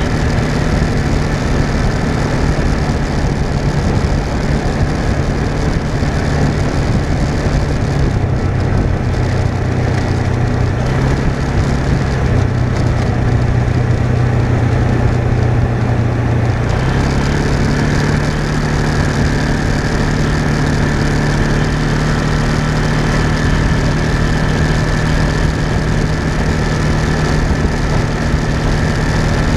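Engine of a small off-road vehicle running steadily while driving along a gravel road, with a constant rushing noise under it. The engine note drops lower about eight seconds in and climbs back to its earlier pitch around seventeen seconds in.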